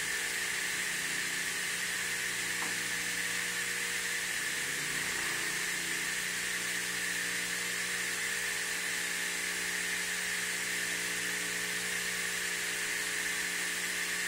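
Automatic trim saw machine running steadily: a constant motor hum with a hiss over it, and one faint click a little under three seconds in.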